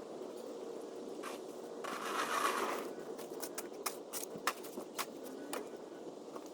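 Snow shovel scraping through snow on pavement about two seconds in, followed by a run of short crunches and clicks.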